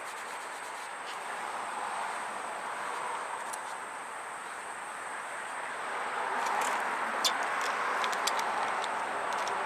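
Steady outdoor background hiss, swelling slightly about six seconds in, with a few faint light clicks.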